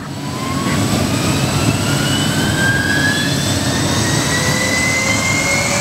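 Sikorsky S-58T helicopter running on the ground, its twin-turbine Twin-Pac engines whining over the low rumble of the turning rotors. The turbine whine rises slowly and steadily in pitch.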